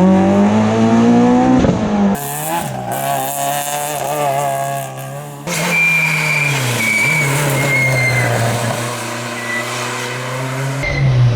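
Rally cars at full throttle on a stage, heard in several quick cuts. The first engine revs rising in pitch, quieter engines run through the middle with a thin, high tyre squeal, and a loud engine comes back near the end.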